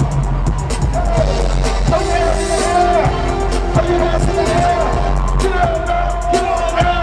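Freestyle dance music with a steady drum beat and a held, sung melody line.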